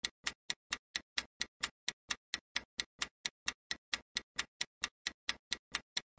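Countdown timer ticking like a clock, about four even ticks a second: the quiz's answer timer running.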